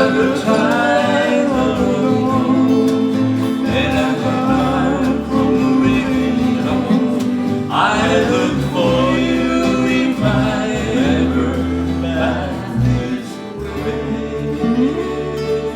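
Acoustic guitar accompanying a singing voice in a live folk song, the voice coming and going between phrases.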